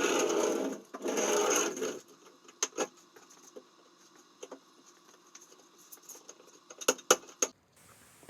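A power tool runs in two short bursts of about a second each, then scattered light clicks and knocks of wood and tools being handled.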